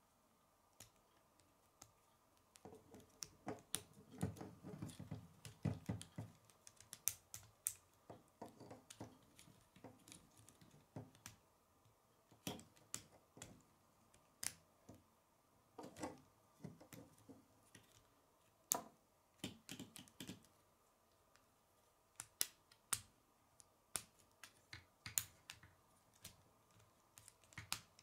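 Plastic K'nex rods and connectors clicking and snapping into place as they are handled, a run of irregular sharp clicks, with softer rubbing of the parts a few seconds in.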